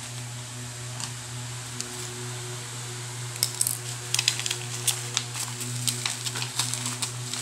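Plastic packaging crinkling and crackling as a bubble-wrapped parcel and its plastic courier pouch are handled, starting about three seconds in. A steady low hum runs underneath.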